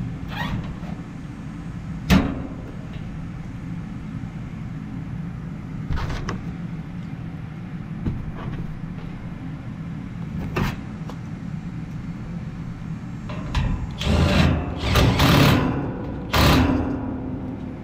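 Cordless driver running in several short bursts near the end, driving the screws that fasten the condenser fan's wire guard. Before that come a sharp knock about two seconds in and a few lighter knocks as the metal guard is handled, over a steady low rumble.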